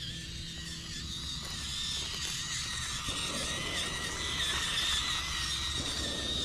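Small electric RC crawler, an FMS FCX24 Lemur, driving over rock: its motor and gears give a steady whine that wavers in pitch with the throttle.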